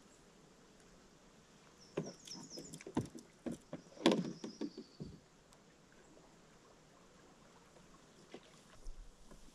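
Knocks, bumps and clatter against a canoe hull as a freshly caught largemouth bass and fishing gear are handled, in a cluster from about two to five seconds in, loudest near the middle.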